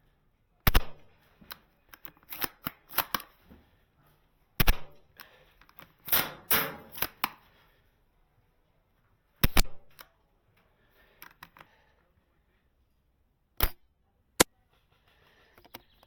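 Airsoft gun firing sharp single shots at irregular intervals, with clusters of quicker clicks and rattles in between.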